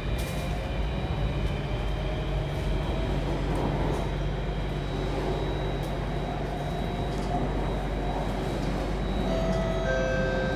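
Alstom Metropolis C830 metro train heard from inside the car as it pulls away and accelerates: a motor whine rising slowly in pitch over the steady rumble of the wheels on the rails, with a constant high tone and new whining tones joining near the end.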